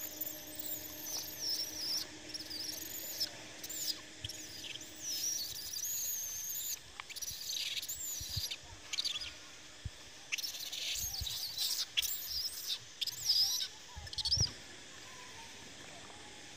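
Baby monkey squealing in a long run of high, wavering cries with short breaks, falling silent about fourteen seconds in.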